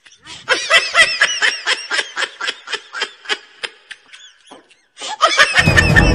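High-pitched snickering laughter, about four quick laughs a second, fading away partway through. A second short burst of laughter comes near the end, with music starting over it.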